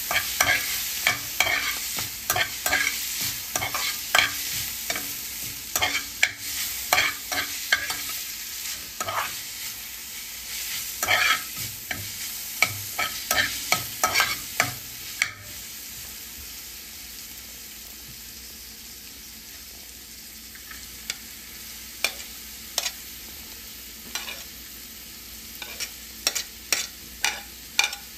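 A spatula scraping and tapping around a nonstick frying pan as mint leaves fry and sizzle. The stirring stops for several seconds past the middle, leaving only a steady sizzle, then starts again with quick regular strokes after chopped onion goes into the pan.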